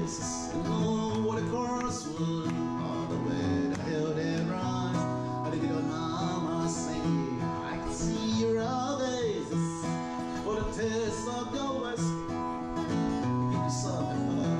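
Acoustic guitar played live, with a man singing along into a microphone.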